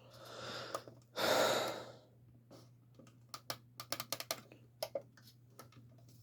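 A person breathes in and lets out a loud sigh, then a quick run of small sharp clicks follows, like the buttons of an alarm clock radio being pressed as it fails to come on.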